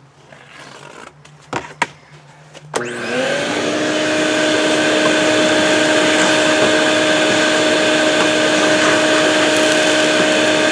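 A few light knocks and clicks, then about three seconds in a vacuum cleaner's motor switches on, spins up quickly and settles into a loud, steady whine.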